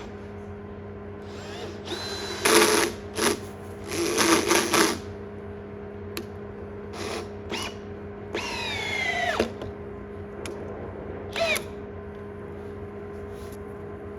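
A handheld power tool run in several short bursts over a steady low hum. Some bursts end in a falling whine as the tool winds down.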